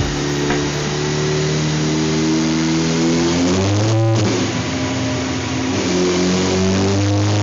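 Suzuki Hayabusa GSX1300R inline-four running under throttle on a chassis dyno, its pitch climbing slowly. About four seconds in there is a short break where the pitch drops, then it climbs again.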